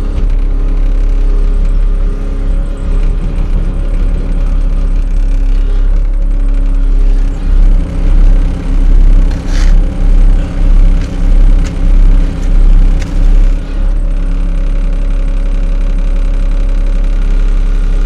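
Heavy earthmoving machine's diesel engine running steadily at work. For several seconds in the middle, a loud low throbbing pulses about twice a second.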